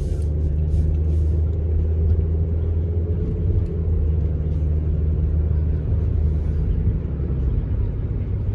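Steady low rumble inside a car's cabin: engine and road noise.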